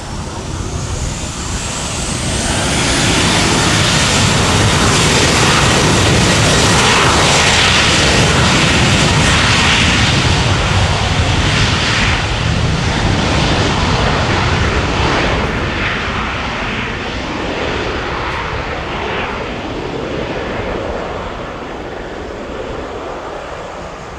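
Boeing 737-800 jet engines (CFM56-7B turbofans) running as the airliner moves slowly along the runway. A faint rising whine comes in near the start, the sound is loudest a few seconds in, and it slowly fades as the jet moves away.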